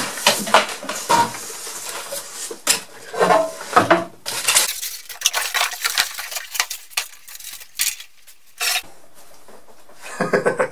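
Unpacking a small benchtop bandsaw: polystyrene packing blocks and a cardboard box scraped, rustled and pulled away from the machine, with irregular knocks and rattles as the metal saw is lifted and set down. A short loud scrape-like burst comes near the end.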